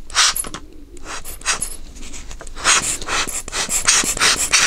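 Hand-squeezed rubber bulb air blower puffing air into an empty watch case to clear dust: short breathy hisses, a few spaced ones at first, then a quick run of about three a second from halfway on.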